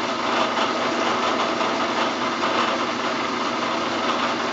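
Bridgeport milling machine running steadily while drilling a hole in a small plate held by hand.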